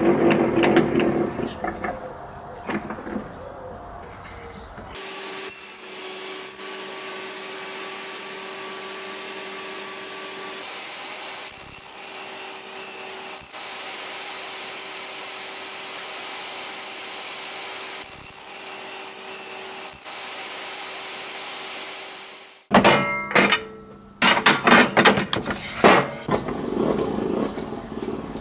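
Table saw cutting pallet-wood boards: a cut in the first few seconds, then the blade spinning with a steady hum, then more cutting with sharp knocks over the last five seconds.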